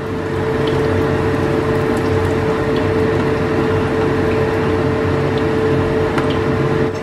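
Kitchen exhaust fan running with a steady hum and a constant tone over spring rolls frying in a pan, with a few faint clicks as tongs turn the rolls.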